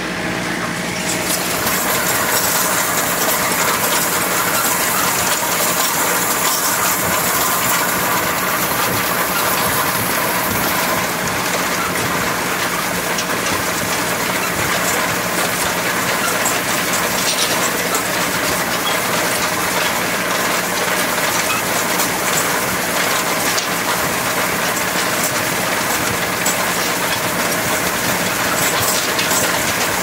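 Tractor running steadily in the field pulling a hay rake, heard from the seat, with the rake and tractor giving a continuous mechanical rattle and clatter.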